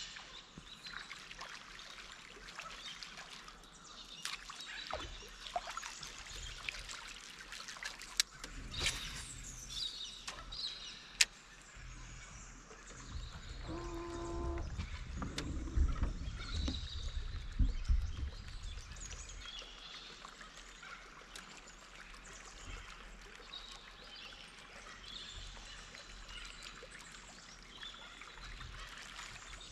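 Water lapping and trickling around a small boat, with birds calling in the background. There are a few sharp clicks, and a low rumble swells in the middle.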